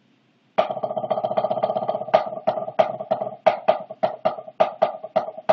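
Grinder 5B drumsticks played on a drum practice pad, with a strong sound. A fast, continuous roll starts about half a second in, with louder accented strokes about three times a second.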